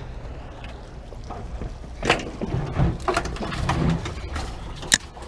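Several sharp clicks and knocks from a spinning rod and reel being handled, the sharpest just before the end, over a low steady rumble.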